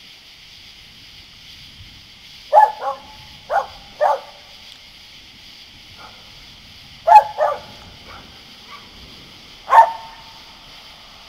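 A dog barking in short, sharp barks: a quick pair, two single barks, another pair, and a last bark near the end.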